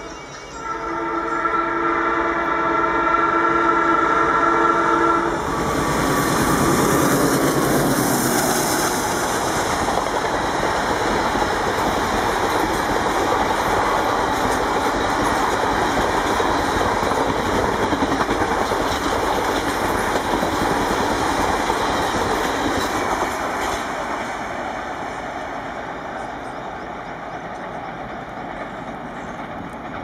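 Alco WDM-3A diesel locomotive's multi-tone horn blowing one long blast that cuts off about five seconds in. The locomotive then passes at about 110 km/h, its 16-cylinder ALCO 251 diesel engine chugging, followed by the coaches' wheels clattering over the rail joints, fading as the train draws away over the last few seconds.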